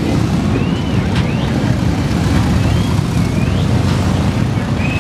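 Many cruiser motorcycle engines running together as a parade of bikes rides slowly past, a dense steady low rumble. Short high rising-and-falling whistles sound over it several times.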